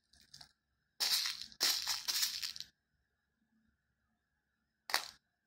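Fingers scraping and picking through small beads on a paper plate: a crackling rustle lasting under two seconds, then a single light click near the end.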